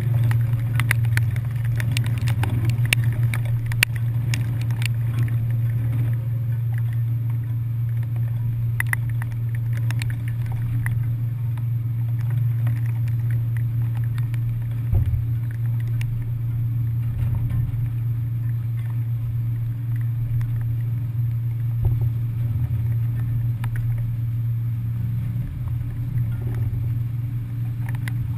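Steady low drone of a commuter ferry's engines, with scattered sharp clicks in the first few seconds.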